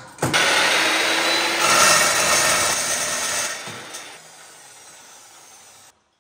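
Makita dry-cut metal chop saw with a toothed blade cutting through a short length of metal tube. It starts abruptly, cuts loudly for about three seconds, then fades as the blade spins down.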